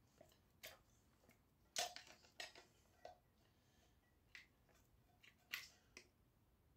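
Wire cutters snipping and clicking at the electric motor's wires: a scatter of short, sharp clicks and snips, the loudest about two seconds in.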